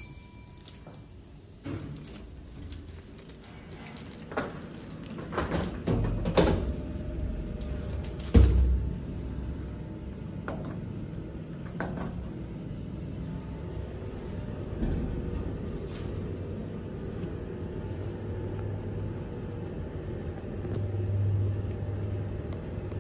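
Lift (elevator) car sounds: a short electronic beep right at the start, then scattered clicks and knocks from the buttons and doors, with a heavy thump about eight seconds in, over the low steady rumble of the car travelling.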